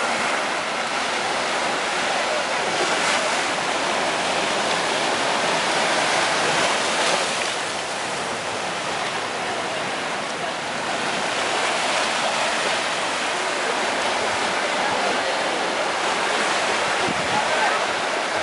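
Ocean surf breaking and washing up a sandy beach: a steady rushing that swells and eases slightly.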